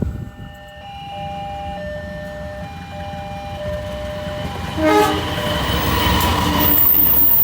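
Train horn sounding in several held blasts as the train approaches, its pitch falling as the locomotive passes, followed by the loud rush and rumble of the train going by.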